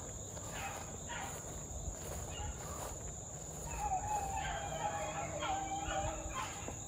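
Pack of beagles faintly baying as they run a rabbit, their cries coming in short wavering calls and then a more continuous chorus about four seconds in. A steady high drone of insects runs underneath.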